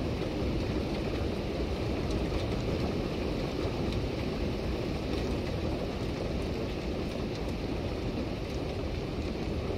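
Steady rain shower falling, an even hiss with scattered sharp taps of drops.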